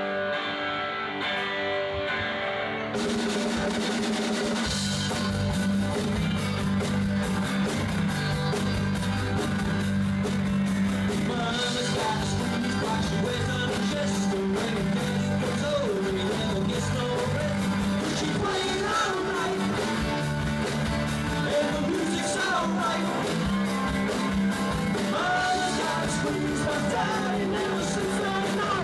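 Live rock band playing: electric guitar alone at first, then bass and drum kit come in together about three seconds in, with a singer's voice over the band later on.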